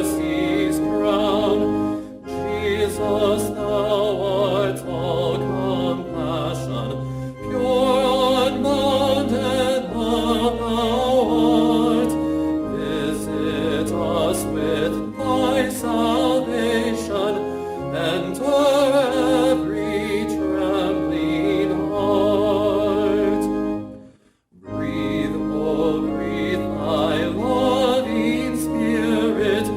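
A hymn sung with wide vibrato over sustained accompaniment chords. The music breaks off sharply for a moment about three-quarters of the way through, then resumes.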